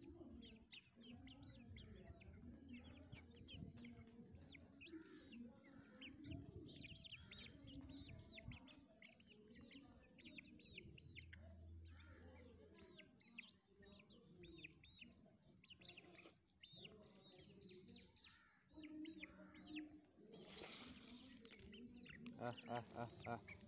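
Domestic hens clucking faintly, with many short high chirps throughout, as the hens feed among pigeons. Near the end there is a brief burst of flapping wings.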